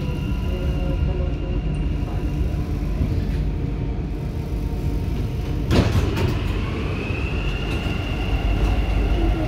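Dubai Metro train running with a steady low rumble and a thin electric whine, and a sharp clunk about six seconds in. After the clunk the whine slides up in pitch.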